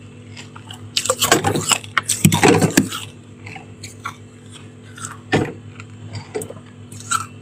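Crisp crunching of freezer frost: two runs of quick crackles in the first three seconds, and a single sharp crunch a little past the middle, over a steady low hum.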